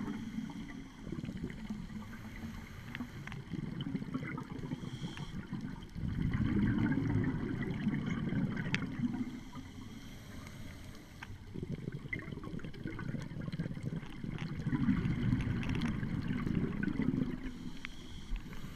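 Scuba regulator exhaust bubbles rumbling underwater, heard muffled through a camera housing, swelling and fading in surges every few seconds with each exhalation, with a few faint clicks.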